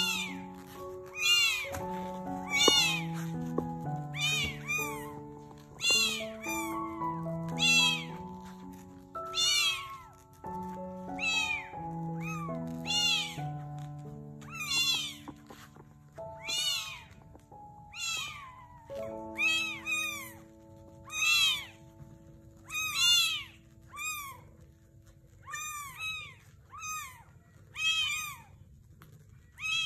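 Newborn kittens mewing over and over: short, high, rising-and-falling cries about once a second. Soft background music with sustained notes plays beneath, thinning to a single held note in the second half.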